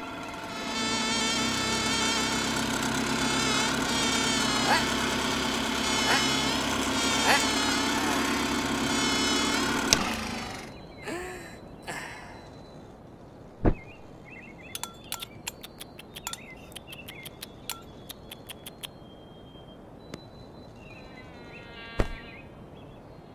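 Cartoon bee's wings buzzing: a loud, pitched, wavering buzz lasting about ten seconds. After it come a thump, a quick run of clicks, and near the end another thump with a short buzz.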